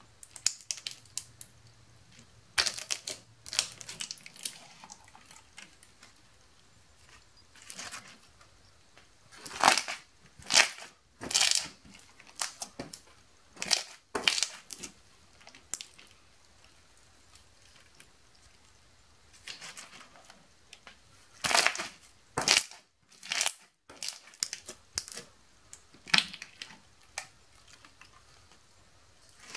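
Slime being squashed through a plastic grid press and flattened and pulled by hand, giving irregular short crackly, sticky bursts with quiet gaps between.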